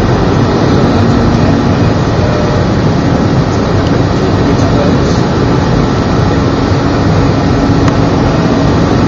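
Steady cabin noise inside an Airbus A319 in flight: the jet engines and rushing airflow make an even, loud rumble, with a faint steady hum underneath.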